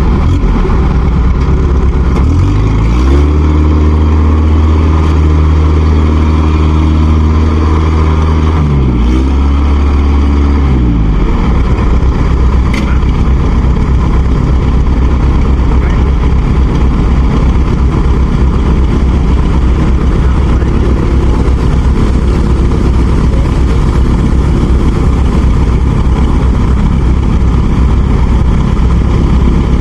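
Heavy farm-machinery engine working hard under load, its revs dropping and climbing back twice in the first eleven seconds, then running steadily at high revs: machines straining to pull a rice harvester out of deep mud.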